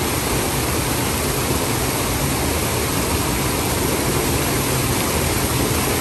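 Waterfall pouring into a plunge pool at close range: a steady, even rush of falling water.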